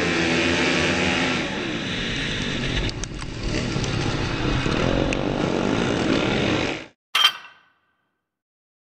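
Flat track racing motorcycle engine heard from a helmet camera, revving up and down through a turn with other bikes close by. The sound cuts off about seven seconds in, followed by one brief sharp burst.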